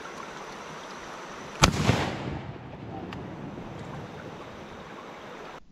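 A single shotgun shot about one and a half seconds in, its report echoing briefly afterwards, over the steady rush of river water.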